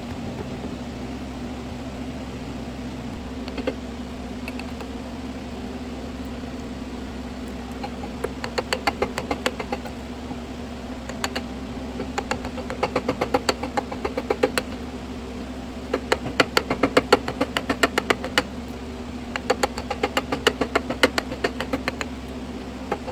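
A metal hammer tapping the end of a wooden-handled carving chisel, driving it into a birch blank in runs of quick, light taps, several a second, starting several seconds in. A steady low hum sits underneath.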